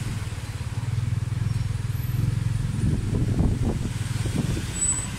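Motorcycle engine of a tuk-tuk running steadily as it pulls the passenger carriage, heard from inside the carriage. A few knocks and rattles come in about three seconds in.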